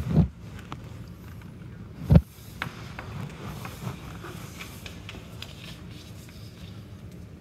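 Two dull knocks, the second and louder about two seconds in, then faint scraping and small clicks from papers and a pen handled on a counter.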